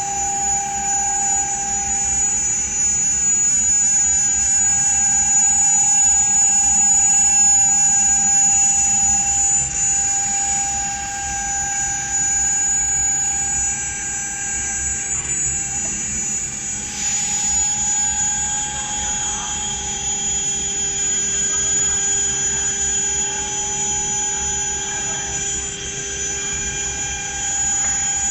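Spindles of a multi-spindle CNC wood router running at speed with a steady high-pitched whine while the bit carves a pattern into a wooden door panel. The pitch wavers slightly a few times as the cut changes.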